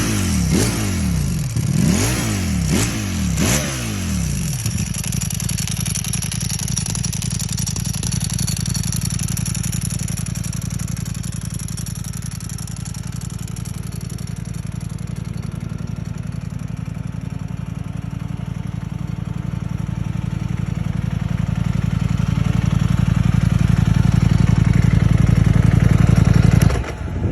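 2021 Ducati Streetfighter V4S's V4 engine, fitted with a dry clutch, blipped through about half a dozen quick revs, then idling steadily. The idle grows louder over the last few seconds and the engine is shut off abruptly near the end.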